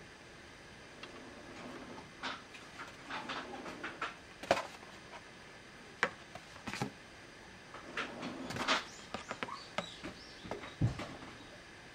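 A sheet of thick cardboard being handled and moved about by hand: irregular rustles and scrapes with several sharp taps, and a dull knock near the end.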